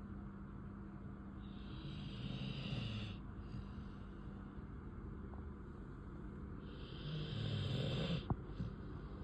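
American Bully dog snoring in its sleep: two long, rough snores about five seconds apart, the second ending in a brief click.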